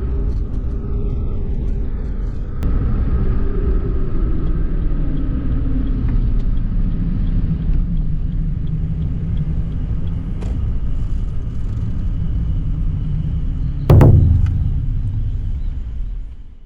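Suzuki Hustler driving along a road: steady low rumble of engine and tyre noise. Near the end there is a single loud thump, and then the sound fades out.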